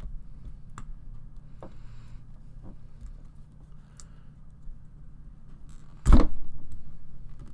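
Small clicks and handling noises of plastic model-kit parts being turned and fitted on a small plastic wheel with its tyre, then one loud low thump about six seconds in that fades over a second or so.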